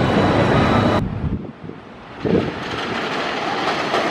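Wooden roller coaster train rumbling and clattering along its wooden track. The rumble cuts off abruptly about a second in, then a brief loud clatter and a steadier rumble follow.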